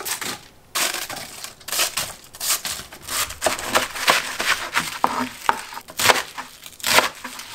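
Kitchen knife cutting through napa cabbage: a series of crunchy strokes as the blade splits the stalks and leaves, a few each second, with the blade knocking on the cutting board.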